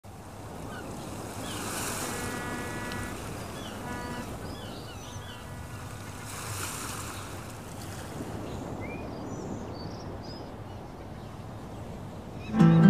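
Ocean surf washing in and swelling twice, with birds chirping over it. Just before the end, music comes in loudly with a deep sustained chord.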